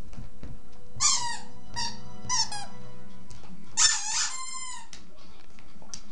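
A rubber squeaky dog toy squeaking about four times as a dog bites and chews it. The squeaks are high-pitched with a falling pitch, and the longest comes near the end and trails into a held whistle as the toy refills with air.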